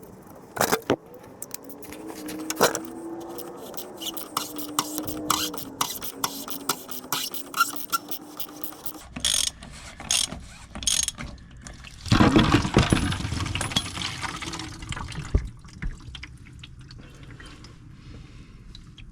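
Socket ratchet clicking in runs while the plastic fuel filter housing cover on a diesel Jeep is turned loose, with a wavering squeak as the cover twists. About twelve seconds in, a loud rush of leftover diesel splashes out of the opened housing.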